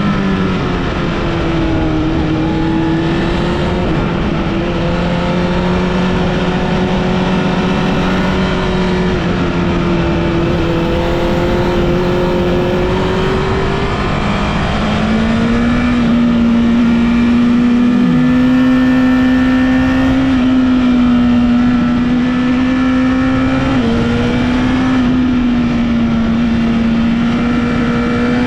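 Honda CBR1000RR Fireblade's inline-four engine running under way on a ride. Its revs hold steady, climb about halfway through and stay higher, with small dips and steps in pitch near the end.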